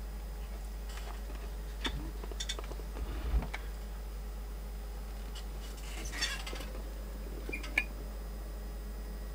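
Steady low hum from a switched-on homemade amplifier, with a few light clicks and knocks scattered through it.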